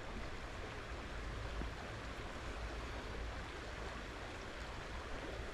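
Small trout stream's fast water running in a steady, even rush, with a low rumble underneath.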